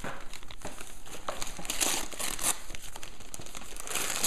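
Gift-wrapping paper crinkling and rustling as a toddler's hands tear at a wrapped present, in irregular bursts that are loudest about two seconds in and again near the end.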